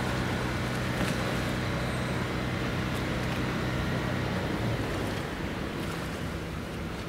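A steady engine hum over wind noise, with a low droning pitch that drops away about four and a half seconds in.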